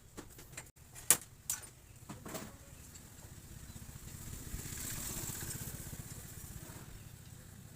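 A few sharp metal clicks and knocks in the first couple of seconds while the spring lock is being fitted onto a motorcycle's rear shock absorber. Then a passing motor vehicle's engine swells and fades over about four seconds.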